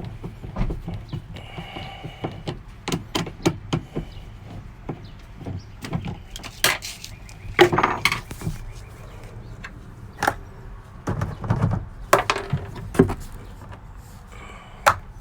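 Irregular clicks, knocks and scrapes of hand work on a 1990–93 Honda Accord's plastic interior trim and its small fasteners, with a few louder knocks in clusters.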